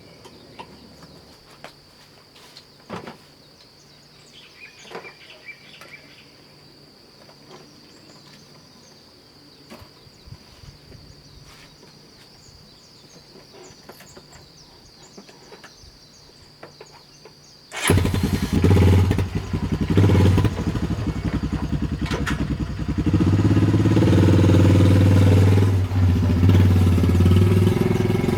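A steady high insect trill with a few faint clicks, then, about two-thirds of the way through, a vehicle engine starts and runs, getting louder a few seconds later.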